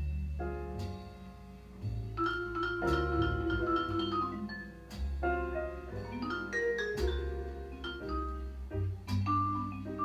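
Jazz record played back through a 2A3 single-ended tube amplifier and JBL 4312D monitor speakers: struck notes that ring out and decay over a bass line.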